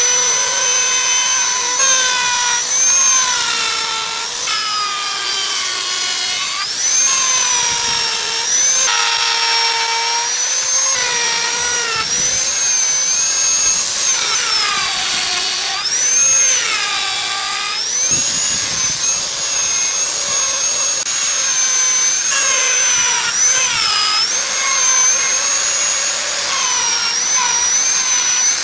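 Electric power carving chisel running with a high-pitched motor whine, its pitch dipping and recovering several times as the chisel bit is pushed into the wood.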